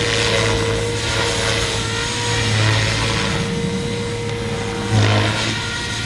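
Radio-controlled model helicopter in flight: a steady whine from its drivetrain over the beat of its rotor blades, briefly louder about five seconds in.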